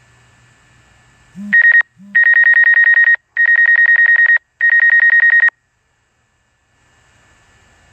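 Electronic alert tone from a device speaker: a rapid, high-pitched trill in three bursts of about a second each, with a short low blip just before. It sounds like a telephone ring.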